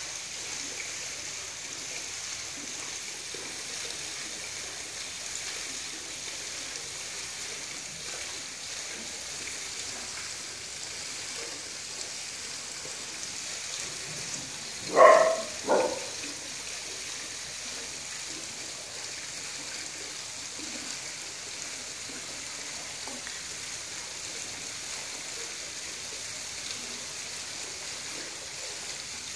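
Steady high outdoor hiss, broken about halfway through by two short, high-pitched barks from a small dog, half a second apart.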